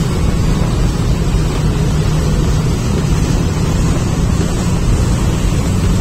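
Wind buffeting the microphone over the steady running of a boat's engines and the churn of its wake.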